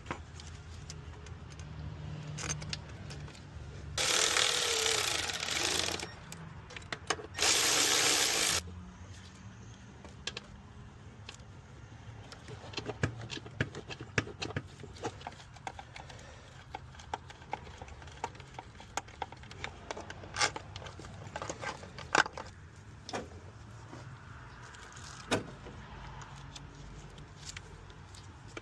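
Metal tools and parts clinking and clicking during starter-motor work on a car, with two loud bursts of hiss, one about two seconds long and one about a second long, a few seconds in.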